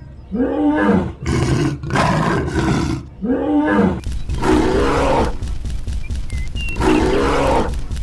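Dubbed-in dinosaur roar sound effects: about five loud, growling roars in quick succession, each about a second long, over a steady low rumble.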